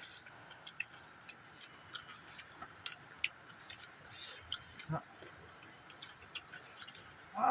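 Insects chirring steadily in a high-pitched band that breaks off briefly a few times, with scattered small clicks.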